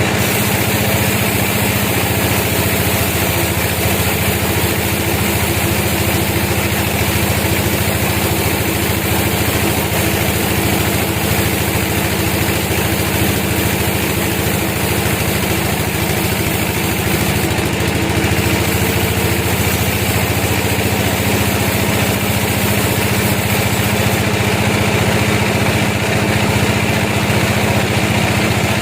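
Sawmill machinery running steadily: an even engine drone that holds the same pitch and level without a break.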